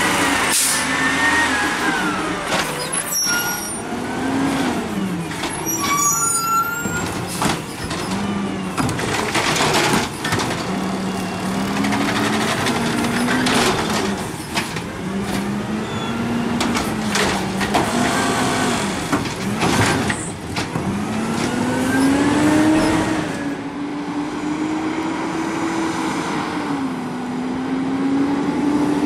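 Natural-gas automated side-loader garbage truck at work: the engine speeds up and drops back again and again as the hydraulic arm lifts and dumps carts. Bangs of carts and hisses of air brakes come in between.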